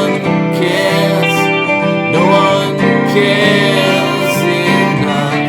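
Music: a rock song with guitars playing, an instrumental stretch without lyrics.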